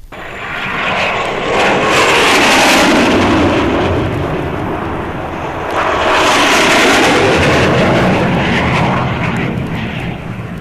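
Red Arrows display jets flying low past, a rushing jet noise with a sweeping whoosh. It swells about two seconds in, eases slightly, and swells again about six seconds in before fading.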